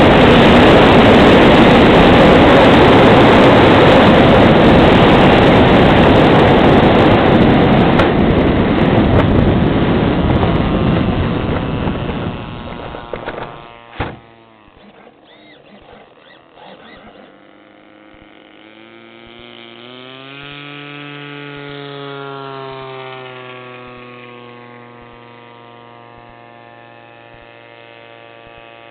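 Rushing airflow noise on a Grunau Baby glider's onboard camera during the landing approach. It fades as the glider slows and ends with a sharp knock at touchdown about two-thirds of the way through. After that a much quieter motor drone rises and falls in pitch.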